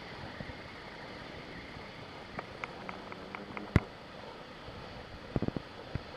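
Steady rush of surf breaking on rocky lava coast, with wind on the microphone. A run of small clicks is followed by one sharp loud knock about halfway through, then a few dull thumps near the end.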